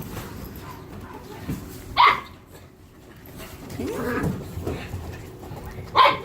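Small dog and puppies play-fighting: two short, sharp yaps about two seconds and six seconds in, with softer, lower dog vocalising and scuffling between them.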